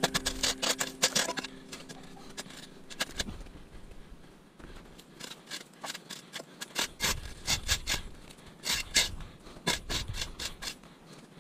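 Small spade chopping and scraping into damp soil and grit beside a concrete slab, cutting a shallow runoff channel. The strokes come in several quick runs with short pauses between.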